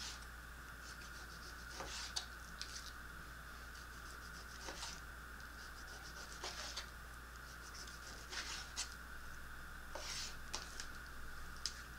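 Knife slicing raw beef very thin on a plastic cutting board: short, soft scraping strokes every second or two, over a faint steady high tone.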